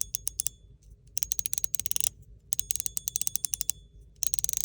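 Fidget slider pushed back and forth over a closely spaced ball-detent track: four quick runs of rapid clicks, some leaving a faint high ring.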